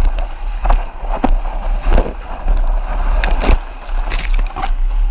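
Surfboard riding through whitewater: water rushing and splashing past the board, with spray dashing against the board-mounted camera in many short hits over a steady low rumble of water and wind on the microphone.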